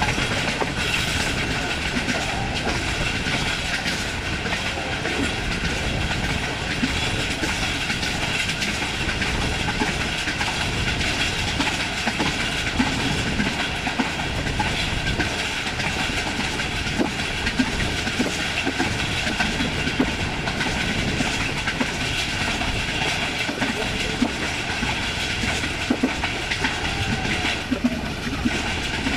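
Passenger train coach running fast on jointed track, heard at the coach window: a steady rush of running noise, with the wheels clicking sharply and irregularly over the rail joints.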